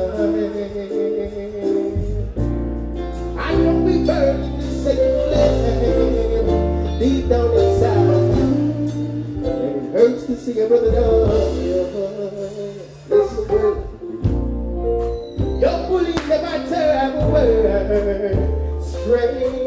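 Live music through a PA: a man singing a slow song into a microphone over accompaniment with a deep, held bass line.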